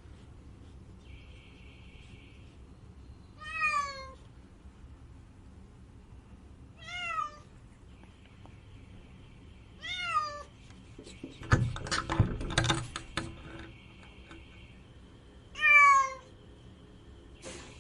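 A domestic cat meowing plaintively: four drawn-out meows, each falling in pitch, a few seconds apart. About halfway through comes a brief cluster of loud knocks and rustling.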